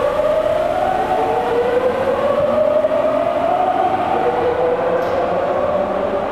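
Tokyu 9000 series electric train accelerating out of an underground station, its GTO-VVVF inverter motor whine rising in pitch, with the rumble of the cars on the rails underneath.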